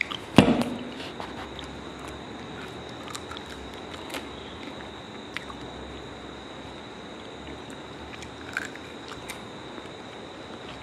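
Close mouth sounds of a person biting and chewing soft, syrup-soaked jalebi, with a loud thump about half a second in and scattered small clicks of chewing after it.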